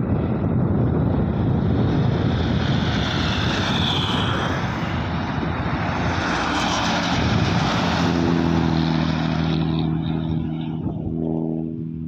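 An intercity coach bus passing on the highway: a loud, steady rush of engine and tyre noise, joined about eight seconds in by a steady low hum, fading near the end as the bus drives away.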